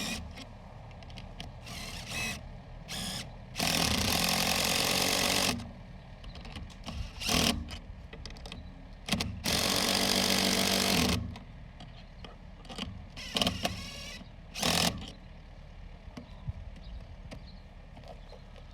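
Construction machinery running, rising loudly twice for about two seconds at a time, with several shorter bursts between.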